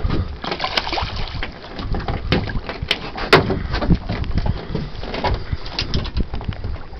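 Wind buffeting the microphone and water moving against a small boat's side, with a few sharp clicks and knocks between about two and a half and three and a half seconds in as the fishing line and rig are handled at the gunwale.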